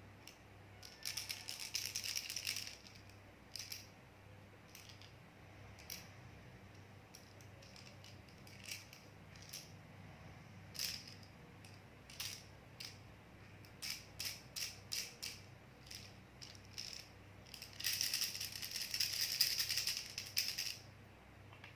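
Baby rattle shaken: short rattling shakes and single clicks scattered through, with two longer runs of continuous shaking, one about a second in and one near the end.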